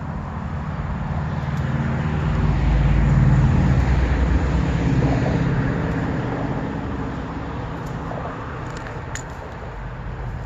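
A road vehicle passing, its noise swelling to a peak about three seconds in and then slowly fading away.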